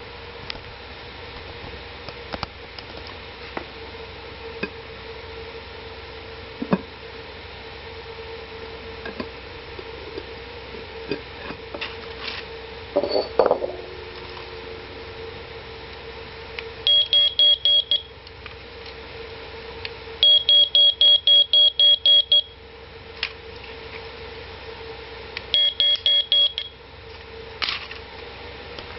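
A cheap smoke detector sounding its test alarm: three short bursts of rapid high-pitched beeps as its test button is pressed, showing that the alarm circuit itself works.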